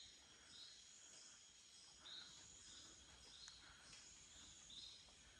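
Faint tropical forest ambience: a steady high insect hum, with a short chirping call repeated at an even pace, every second or so.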